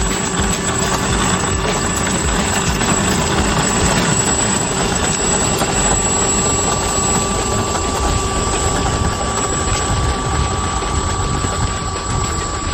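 FMS P-51D Mustang 1700 mm electric RC warbird running steadily: a continuous motor-and-propeller drone with a thin high whine over it.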